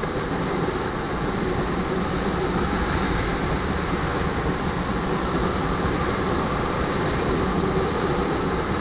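Crude oil train's tank cars rolling past at speed: a steady, unbroken noise of steel wheels running on the rails.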